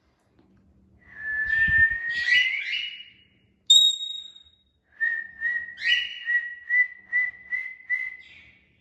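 A pet parrot whistling: a long whistle that rises in pitch, a short sharp high note, then a run of about nine quick pulsing whistle notes, all at the same pitch.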